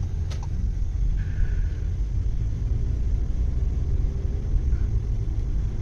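Steady low road and engine rumble heard inside the cabin of a moving Volkswagen Taigun GT SUV.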